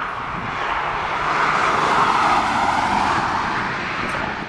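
Boeing 767-300ER's GE CF6 turbofan engines at low thrust as the airliner rolls past on the ground: a steady jet rush that swells to its loudest about two seconds in, then eases off.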